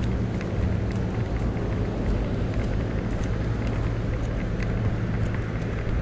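Bird electric scooter rolling over pavement: a steady low hum and rumble from its motor and small wheels, with faint scattered rattles.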